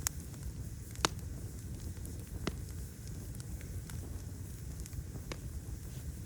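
Open fire burning with a steady low rumble, crackling with a few sharp pops; the loudest comes about a second in.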